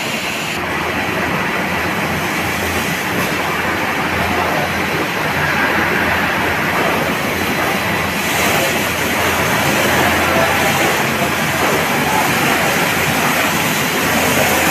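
Snack-food production line running: a loud, steady, continuous mechanical noise from the machinery and conveyors.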